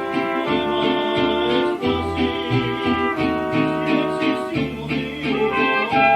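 Mariachi band playing an instrumental passage: violins holding chords over strummed guitars, with a deep plucked bass line moving from note to note.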